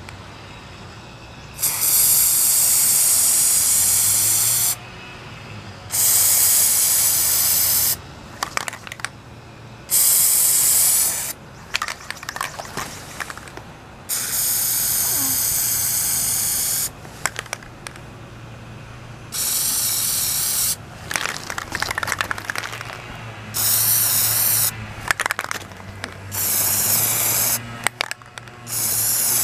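Aerosol can of Plasti Dip rubber coating spraying in about eight separate hissing bursts, each one to three seconds long, as a first coat goes onto a plastic airsoft pistol. Short clicks and rattles come in the gaps between bursts.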